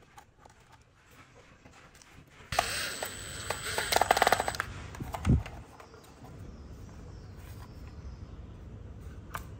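Makita cordless drill/driver driving a screw into a plastic battery-pack casing. The tool starts about two and a half seconds in and runs for about three seconds, with a fast rattle near the end as the screw seats. A dull thump follows just after it stops.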